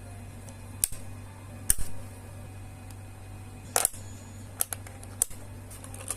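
A handful of sharp, irregularly spaced clicks and clacks, the loudest about two and four seconds in, from handling a mechanical keyboard and its packaging, over a steady low hum.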